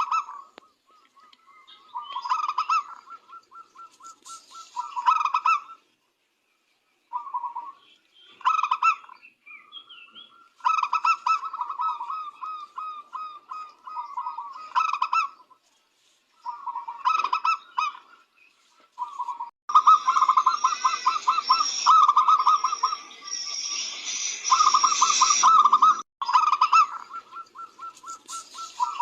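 Zebra doves (perkutut) cooing in repeated phrases of quick, rippling coos separated by short pauses. The calling is denser and louder for several seconds past the middle.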